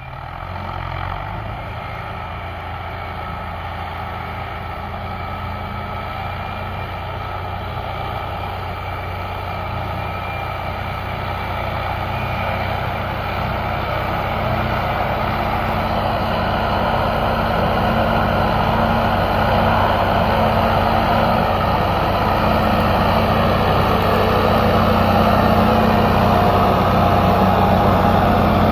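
Diesel engines of a farm tractor and the loaded Mitsubishi Canter sugarcane truck it is towing, running steadily under load as they climb a slope, growing steadily louder as they come closer.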